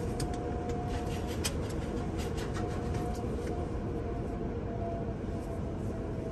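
Automatic tunnel car wash heard from inside a Chevy Tahoe's cabin: water spraying and streaming over the windshield and body over a steady low rumble of the wash machinery. A scatter of sharp ticks sounds through the first three seconds or so.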